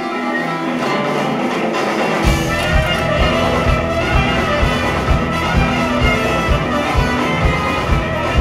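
Live jazz-funk band playing, with trumpets and saxophone carrying the melody. About two seconds in, the electric bass and drums come in with a steady beat.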